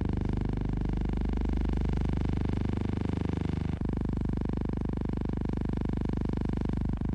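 Steady low hum with many overtones: noise on the old newsreel's soundtrack rather than any sound of the scene. It clicks and shifts slightly at a film splice about four seconds in, and again near the end.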